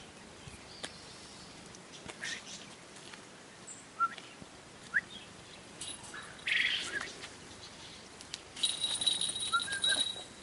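Harris hawk flying a short hop to a falconer's glove. A few short, high rising chirps come first, then near the end a louder stretch of wing and feather rustle with a thin, steady high ringing.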